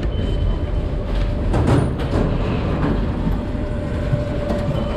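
Métro station din: a steady low rumble of rail traffic with a constant hum, a short high beep near the start and again at the end, and a brief knock about a second and a half in.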